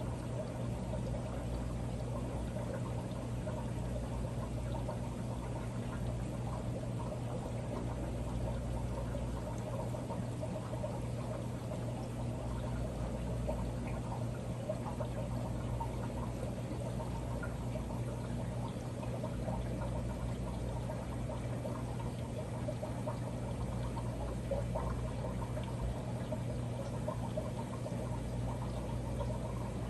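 Water from an aquarium filter pouring and trickling steadily into the tank, over a low steady hum.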